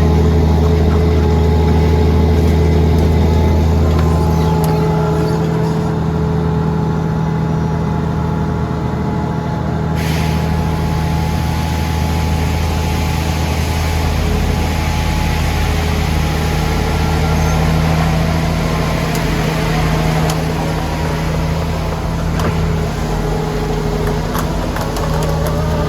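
Diesel engine of a Dynapac SD2550C asphalt paver running steadily with a low, even hum. About ten seconds in, a brighter hiss joins it suddenly and stays.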